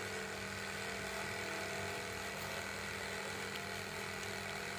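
Reaim electric jigsaw running steadily as its blade cuts through plywood, an even motor hum.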